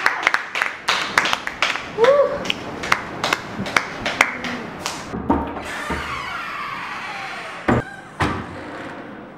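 A small group clapping in a classroom, scattered separate claps for about the first five seconds, with a brief voice rising among them. Near the end come two heavy thumps about half a second apart.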